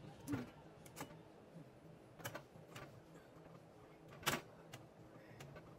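Scattered light clicks and taps, about half a dozen, the sharpest about four seconds in, over a faint low hum.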